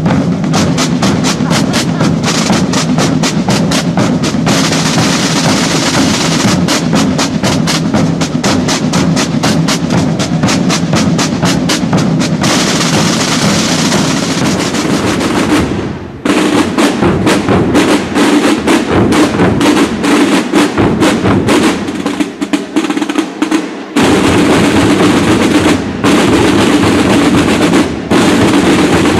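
Procession drum band playing snare drums in rapid rolls and beats. About 16 seconds in the playing breaks off for a moment and resumes with a different pattern.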